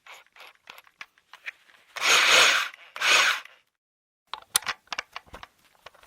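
Plastic interior trim of a car being worked loose and pulled off: scattered clicks and knocks, with two short, loud rubbing scrapes about two and three seconds in.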